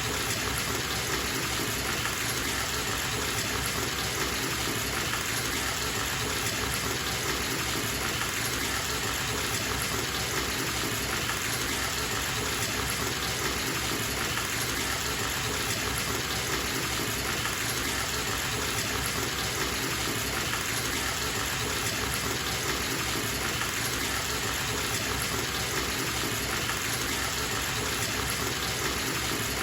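Bathtub filling from a running tap: a steady, unbroken gush of water.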